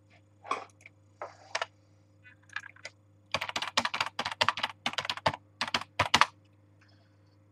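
Typing on a computer keyboard: a fast run of keystrokes lasting about three seconds in the second half, after a few scattered softer noises.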